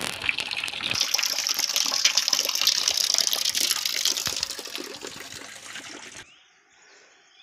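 Water running out of a pipe's spout and splashing onto the ground, a steady rush that stops abruptly about six seconds in.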